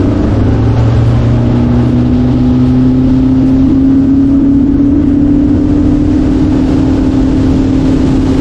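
Boat's outboard motor running at speed, its pitch holding steady and creeping slightly higher, over a steady rush of noise.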